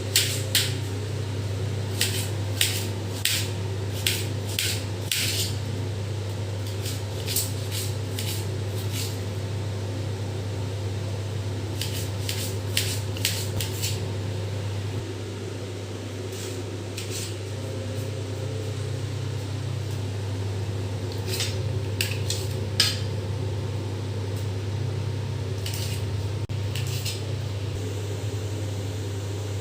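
Knife cutting onions, the blade clicking against the cutting surface in irregular runs of sharp taps, thick at first and sparser later, over a steady low hum.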